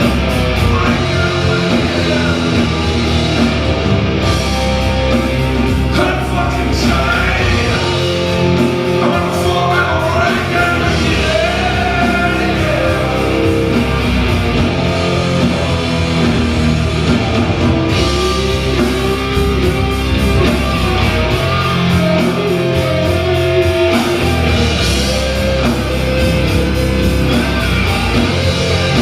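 Live rock band playing at full volume: two electric guitars, bass and drums in a heavy rock song.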